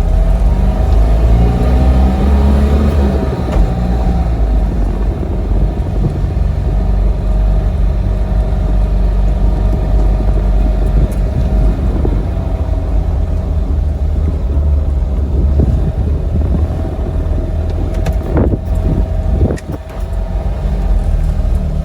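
1970 Fiat 500's small air-cooled two-cylinder engine running under way, heard from inside the car: its pitch rises over the first few seconds as it accelerates, then holds steady with a heavy low rumble. The loudness dips briefly near the end.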